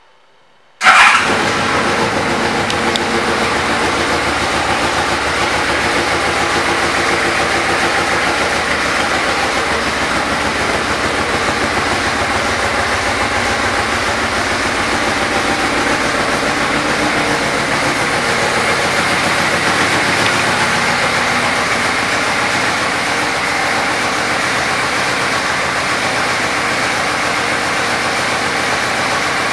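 2008 Yamaha Royal Star Venture's 1294 cc V4 engine firing up suddenly about a second in, then idling steadily.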